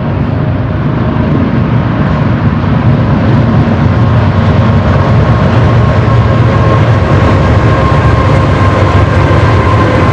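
Union Pacific diesel-hauled intermodal freight train passing close by: a loud, steady low rumble of locomotives and double-stack cars rolling on the rails, growing louder over the first few seconds, with a thin steady whine above it.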